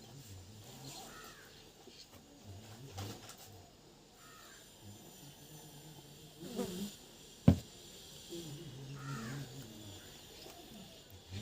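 A bird calling three times in the background, a few seconds apart, with a single sharp click about two-thirds of the way through.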